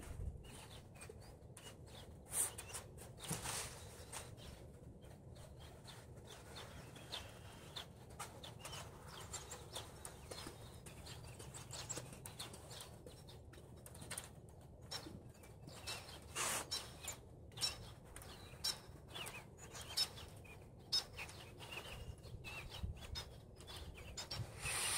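Faint outdoor ambience with birds chirping now and then among scattered soft clicks.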